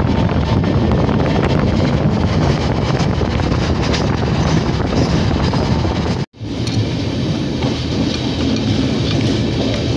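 Steady running noise of an Indian Railways express passenger coach at speed, heard from an open window: wheels on the rails with some clickety-clack and rushing air. Just after six seconds the sound cuts out for a moment, then goes on from the open doorway as the train runs past a line of freight wagons on the next track.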